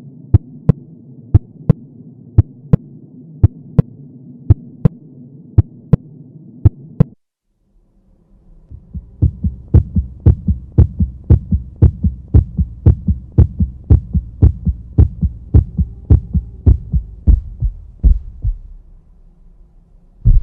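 Recorded heart sounds, the paired lub-dub of the first and second heart sounds, over a steady hum. For about seven seconds the pairs come about once a second. After a short break a second heartbeat recording follows, deeper and faster, and fades near the end.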